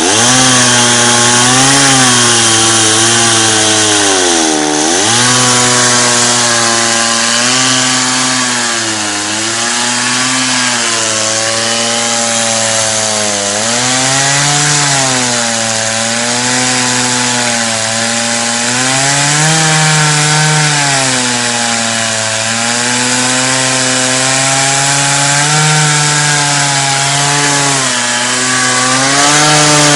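Chainsaw engine running under load as it rips along a log to cut a board, its pitch sagging and recovering over and over as it bogs in the cut, with one deep dip about five seconds in.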